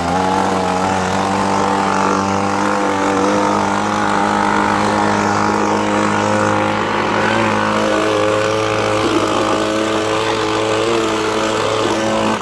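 Handheld two-stroke gas leaf blower running steadily at a constant engine pitch, blowing loose rust and dirt off a pickup truck's frame.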